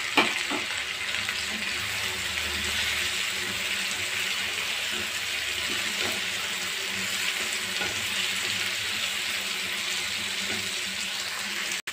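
Sliced ivy gourd frying in hot oil in a pan with onion, tomato and garlic: a steady sizzle, with the occasional scrape of a wooden spatula stirring.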